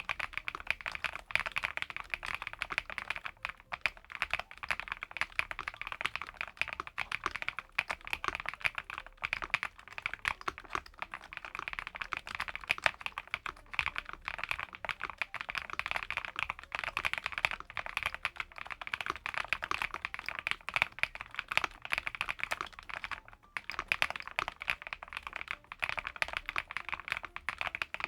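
ATK VXE V75PRO gasket-mount mechanical keyboard with PBT double-shot keycaps being typed on quickly and continuously, a dense patter of key clicks with a couple of short pauses.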